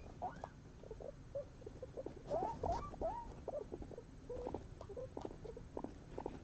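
Guinea pigs making quick, short squeaks and chirps, several a second, busiest and loudest about two to three seconds in.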